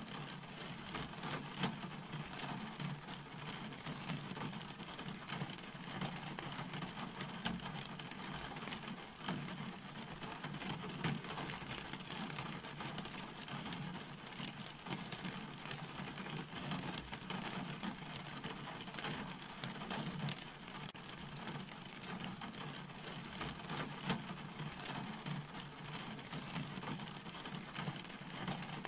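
Steady rain falling, with a constant hiss of many fine drop ticks and a steady low rumble beneath it.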